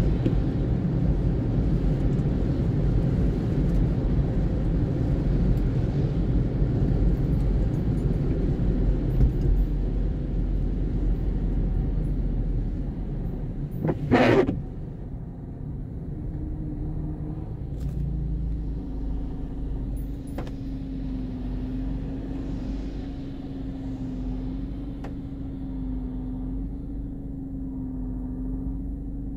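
Road noise heard from inside a car driving on a wet road in the rain: a steady rush of tyres on the wet surface that eases about halfway through as the car slows and stops, leaving a steady low engine idle hum. A short loud noise breaks in about halfway through, just before the road noise drops.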